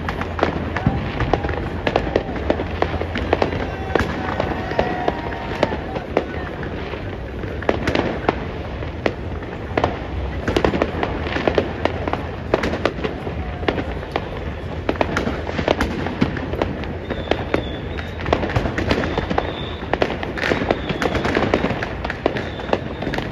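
Fireworks and firecrackers going off all around: a dense, unbroken crackle of irregular bangs and pops, some sharper and louder than the rest.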